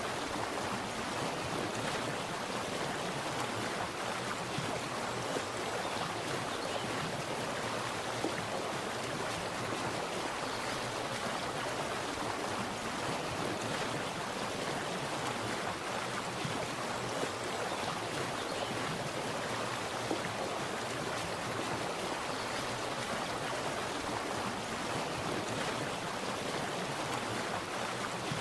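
Water splashing and running steadily: an even, unbroken rush with small splashes throughout.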